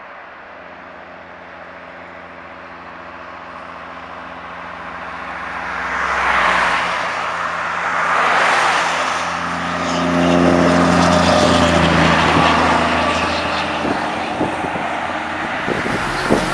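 Road traffic passing close by: a car, then a Scania R440 truck with its straight-six diesel running. The tyre and engine noise swells from about four seconds in. It is loudest as the truck goes past in the second half, its engine note rising and falling.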